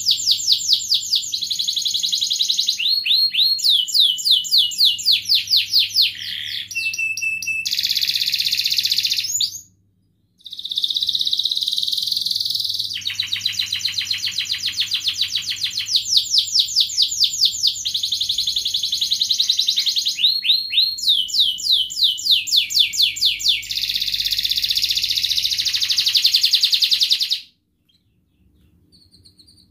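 Domestic canary singing a long song of fast, high-pitched trills and rolls, one run of rapidly repeated notes after another at changing speeds. The song breaks off briefly about ten seconds in and again near the end.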